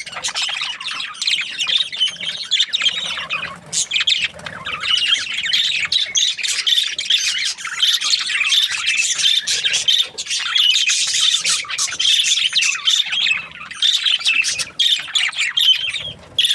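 A flock of budgerigars chattering, many birds at once in a dense run of squawks and warbling chirps.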